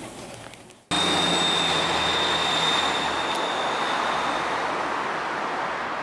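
A Hino Blue Ribbon II diesel city bus pulling away from a stop, heard from the roadside: the engine running, with a high steady whine that fades as the bus moves off. The sound starts abruptly about a second in.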